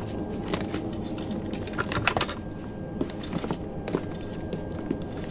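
Airliner cockpit in flight: a steady low drone of the aircraft, with scattered light clicks and small rattles, several to a second.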